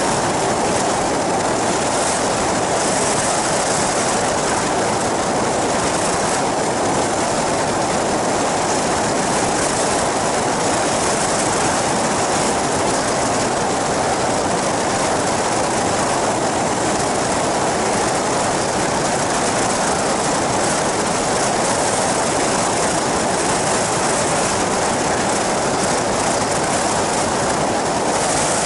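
Engine and pusher propeller of an open ultralight flying boat running steadily in cruising flight. The result is a constant, unbroken noise mixed with wind rushing over the microphone.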